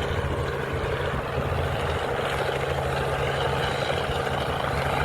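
Helicopter running steadily, its rotor giving a fast low beat under the engine noise.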